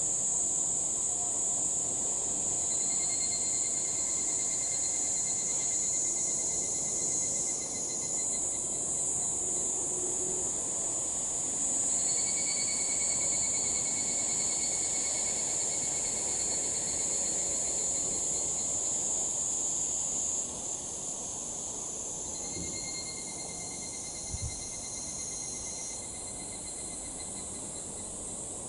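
Higurashi (evening cicadas) calling over a steady high-pitched insect chorus. A trilling call rises out of it three times, each lasting several seconds.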